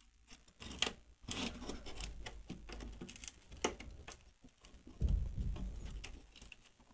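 Handling noise from the battery pack and its wires being worked loose inside an opened FM radio: rustling, scraping and irregular small clicks, with low thumps about two seconds in and again about five seconds in.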